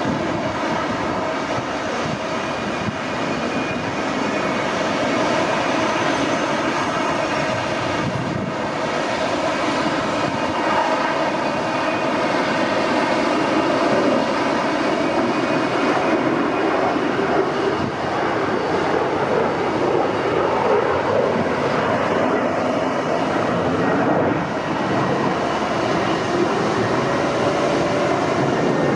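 Jet airliner engines running, a steady loud noise with several whining tones held over it.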